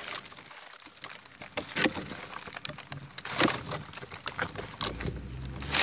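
Dry fallen leaves rustling and crackling in scattered crackles as a person shifts around buried in a leaf pile, with a low rumble near the end.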